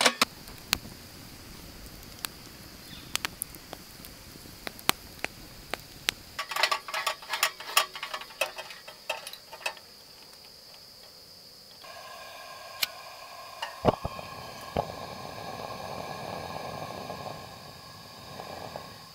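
Metal clicks and clinks as a propane lantern is handled and screwed onto its gas cylinder. Partway through, gas starts hissing, a few sharp clicks follow, and the lit lantern burns with a steady hiss.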